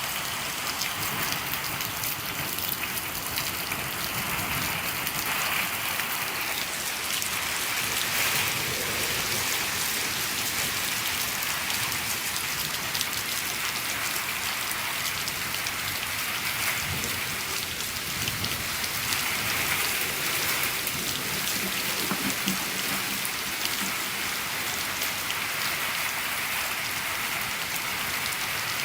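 Steady rain falling on a shed, a dense, even patter of drops that never lets up.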